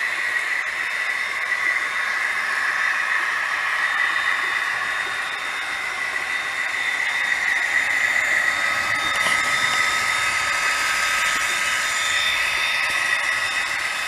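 OO gauge model freight train running along the track: a steady whirring hiss from the locomotive's motor and the wheels rolling on the rails. A faint steady whine joins it a little past halfway.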